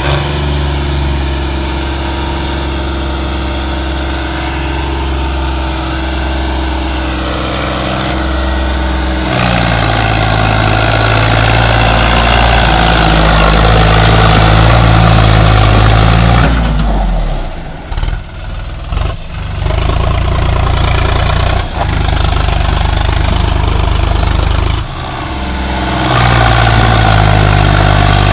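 Sonalika tractor's diesel engine working under load as it tries to pull a loaded trailer out of deep sand. It runs steadily at first, then revs up hard about a third of the way in. It drops off briefly a couple of times and revs up again near the end.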